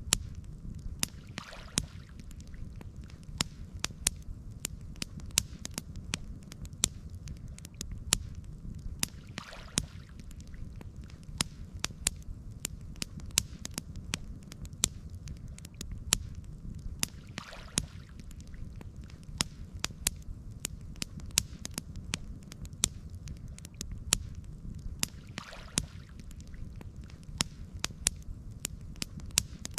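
Campfire burning with frequent sharp crackles and pops over a low steady rumble. A soft swell of noise rises and fades about every eight seconds.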